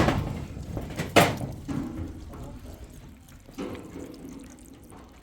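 Two sharp knocks about a second apart, over a wash of noise like water running into a sink.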